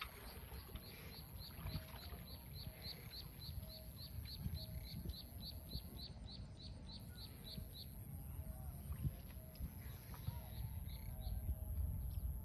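A rapid run of short, high chirps from a small animal, about four a second, lasting some seven seconds and returning briefly near the end, over a low rumbling background.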